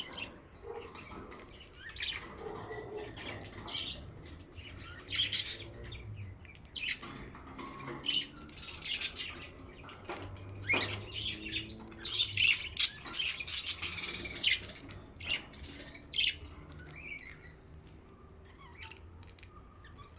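Pet budgerigars chirping and squawking in irregular bursts of short high calls, busiest in the middle of the stretch.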